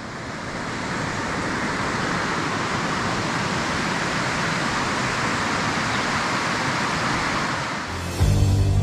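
Shallow rocky stream running over small rapids, a steady even rush of water. Background music cuts in near the end.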